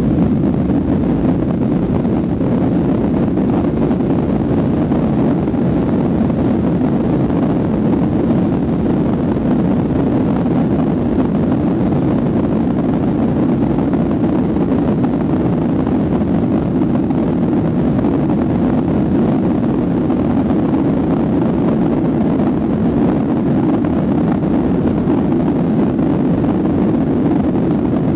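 Steady low rumble of a Boeing 737-400's CFM56 engines, heard inside the passenger cabin as the airliner taxis at low power, with no change in pitch or loudness.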